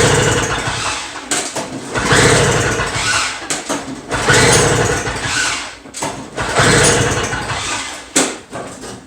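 Two-stroke Toro snow blower engine being pull-started on half choke: four pulls of the recoil starter about two seconds apart, the engine turning over each time without catching. It is a no-start that the owner suspects lies in the carburetor.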